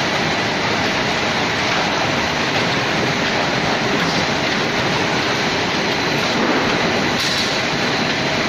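Food-processing machinery running: a steady, dense mechanical din with a faint high whine.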